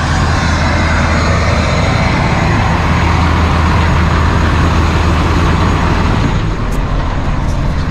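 Heavy diesel truck engine idling steadily, a deep even hum under a broad rushing noise. About six and a half seconds in the rushing thins as the sound is heard from inside the cab, with a few light clicks near the end.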